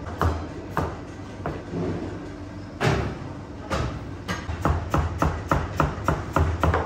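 Kitchen knife cutting through watermelon and knocking on a plastic cutting board. A few scattered cuts give way, a little past the middle, to a steady run of about three cuts a second as the flesh is sliced into segments.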